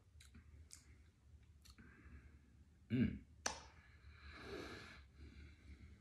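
Mouth sounds of someone tasting a sip of bourbon: a few wet lip and tongue smacks, a short throaty 'mm' about three seconds in, then a breathy exhale through the mouth.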